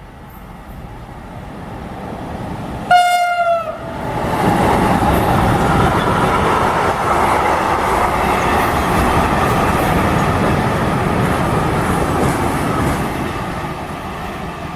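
Train sounding one short horn blast, a single note with a slight drop in pitch, as it approaches. It then passes close by with loud, steady wheel-and-rail noise that eases off near the end.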